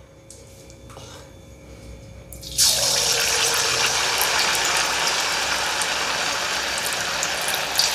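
Hot oil in a kadhai bursts into loud, steady sizzling about two and a half seconds in, as a single test piece of marinated chicken kabab is dropped in to deep-fry on a medium flame. Before that there are only a few faint clicks.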